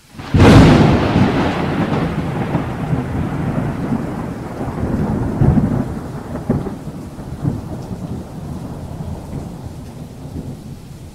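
Thunderstorm: a sudden loud thunderclap about half a second in, then thunder rumbling and slowly dying away over steady rain, with a few more low rolls of thunder partway through.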